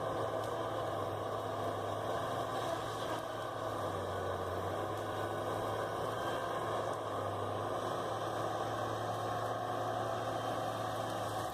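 Heavy machine's engine running steadily with a low, even hum.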